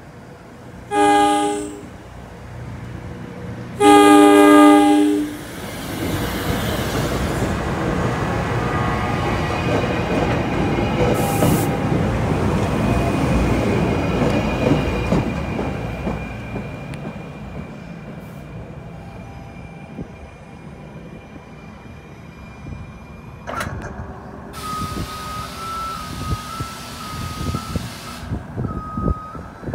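Passenger train horn sounding a short blast and then a longer one as the train approaches. Then the train's wheels rumble on the rails as it passes, swelling and then fading over about ten seconds. Near the end a thin, repeated electronic beeping sounds.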